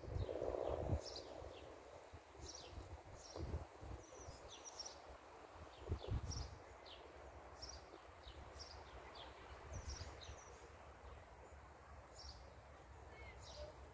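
Wind gusting through sand ryegrass and buffeting the microphone in low rumbles, strongest near the start and about six seconds in, with the grass rustling. Small birds chirp again and again in the background.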